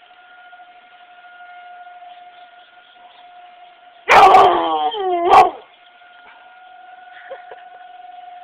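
Tornado siren sounding a steady, even tone. About four seconds in, a chocolate Labrador retriever breaks in with one loud howl of about a second and a half that falls in pitch, ending in a short second yelp.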